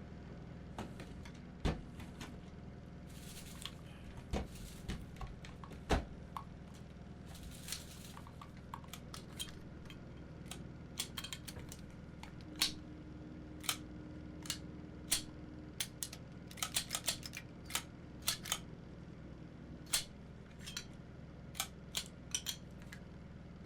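Crates being opened and their contents handled: scattered sharp clicks, knocks and light metallic clinks, coming more often in the second half, over a steady low hum.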